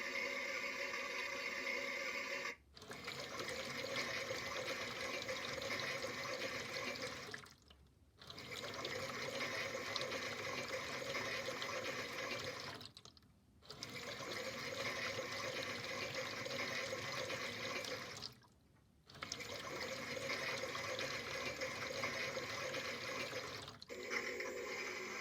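Toy washing machine making a steady watery rushing sound, like water filling or washing. The sound breaks off briefly about every five seconds and starts again.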